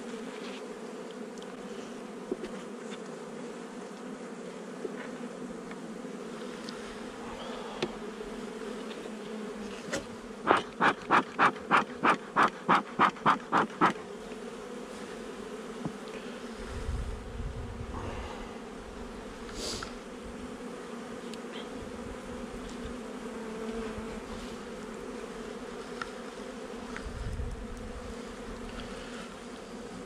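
Honeybee colony humming steadily: a low buzz with a higher overtone. About a third of the way in comes a quick run of about ten loud, evenly spaced puffs, and there are a few soft low thumps later on.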